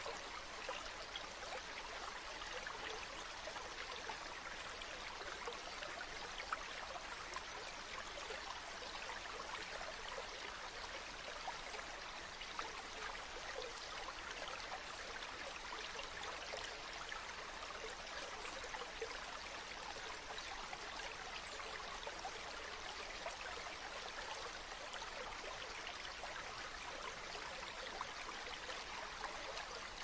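River water flowing steadily: an even, continuous wash of running water with fine flickers of small splashes and trickles.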